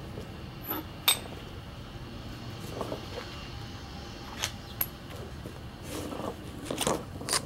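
Metal shock-absorber parts, a top mount and washers, being set down one at a time on asphalt, giving a few separate sharp clinks over a steady low background noise.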